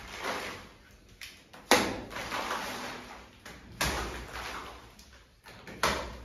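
Hand trowel slapping wet textured plaster onto a wall and dragging it across the surface: four strokes about two seconds apart, each a sharp slap followed by a scraping slide. The second stroke is the loudest.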